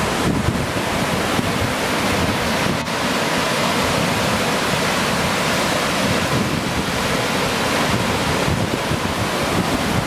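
Small river cascades rushing steadily over rocks, a loud, even spray of water noise.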